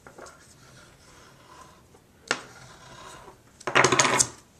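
Paper being folded and a bone folder rubbed along the crease to smooth it. There is a sharp tap about two seconds in, then a loud half-second of rough scraping strokes near the end.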